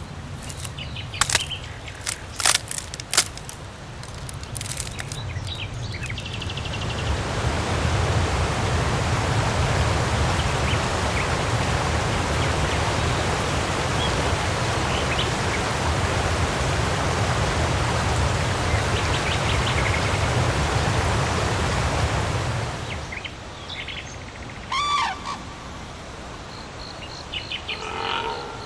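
Rainforest ambience: sharp bird chirps and clicks at first, then a steady, even rushing noise that swells in about six seconds in and falls away shortly before the end, followed by birds calling in rising and falling whistles.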